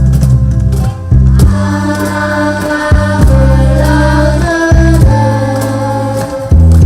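Ukulele ensemble performing a song with the group singing together over a steady bass line.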